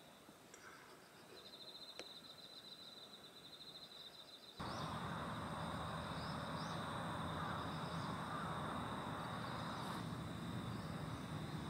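Outdoor night-style ambience with insects trilling: a faint, pulsing high trill at first, then, after an abrupt cut about four and a half seconds in, louder steady background noise with a continuous high trill and a few short chirps.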